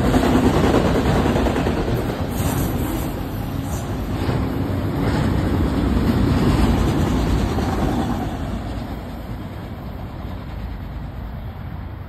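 Autorack freight cars rolling past at close range: a steady, loud rumble of steel wheels on rail with a few sharper clacks. The sound fades near the end as the train moves away.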